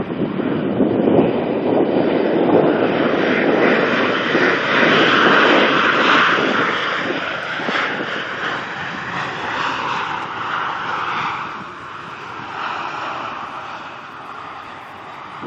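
Airliner's engines passing by with a loud rushing noise that peaks early and then slowly fades away.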